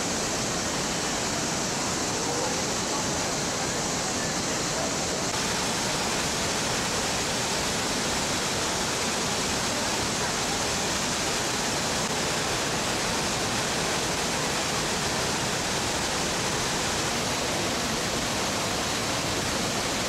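The Manavgat Waterfall: a river pouring over a wide, low rock ledge, with a steady, unbroken rush of falling water.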